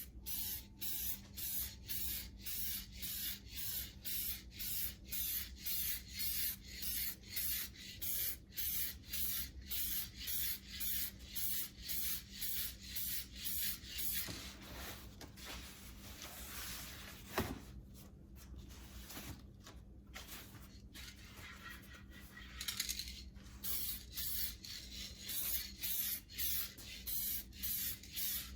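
Paint being sprayed in short, rapid bursts of hiss, about two a second, as a coat of mixed custom paint goes on. About halfway through the bursts give way to a steadier hiss, a sharp click sounds, and after a short lull the quick bursts start again.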